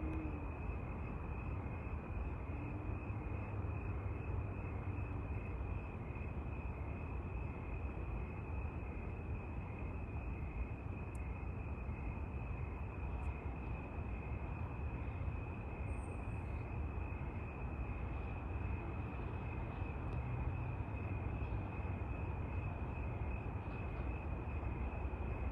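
Steady outdoor ambience: a constant high insect trill, like crickets, over a low, even rumble of distant traffic or wind.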